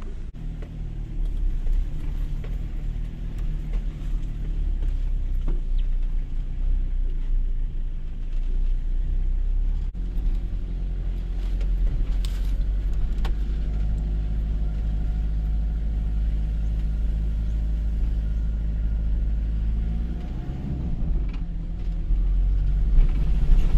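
Toyota HiLux engine running at low revs, heard from inside the cab: a steady low drone, with a few sharp knocks about halfway through.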